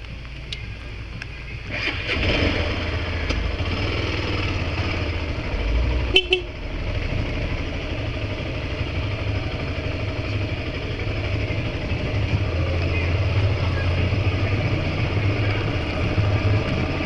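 A vehicle's engine and road noise, getting louder about two seconds in and then holding steady, with a short horn toot about six seconds in.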